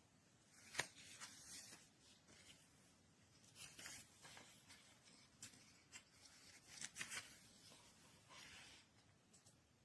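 Faint rustling and scattered light clicks of objects being handled, with one sharper click about a second in and a small cluster of clicks about seven seconds in.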